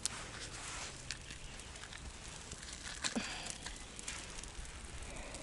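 Small campfire crackling, with scattered snaps and pops over a low hiss; one louder snap about three seconds in.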